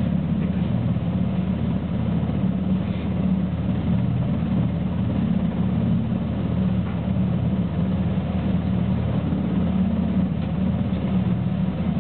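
NH90 helicopter running on deck with its main rotor turning: a steady, even drone of the twin turbine engines and rotor.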